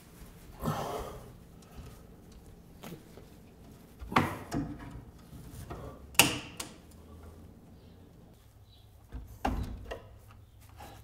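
Elk antlers and bone skull knocking and scraping against wooden rafters as a European mount is worked into place overhead: a scrape about a second in, then a few sharp knocks spread over the rest.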